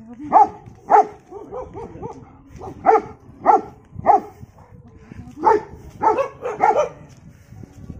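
Dog barking repeatedly: about ten loud barks in clusters of two to four, with softer short yelps between them.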